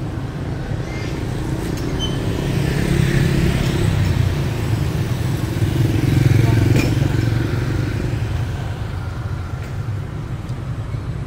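Motorbikes and scooters passing along the street, their small engines running over a steady traffic hum. The engine sound swells twice as riders go by close, the loudest about six seconds in.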